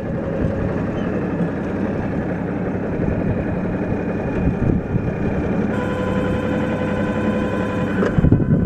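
Tractor engine running steadily with a Hesston 5500 round baler working behind it, with a few knocks near the end.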